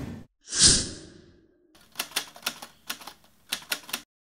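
A short, loud sound effect, then a quick irregular run of typewriter key clicks: an editing sound effect for on-screen title text being typed in.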